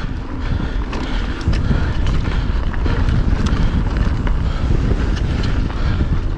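Mountain bike, a Pivot Firebird 29, riding fast down a dirt singletrack. Wind rushes over the camera microphone and the tyres rumble on the dirt, with frequent sharp clicks and rattles from the bike over the bumps.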